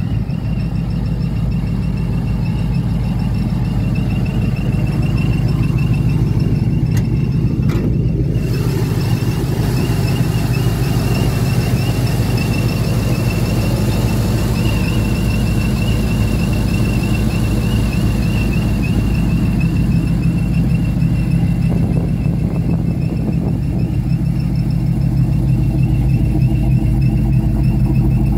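Supercharged 6.0 LS V8 of a 1955 Chevy step-side pickup idling steadily, with a steady high whine over the engine note.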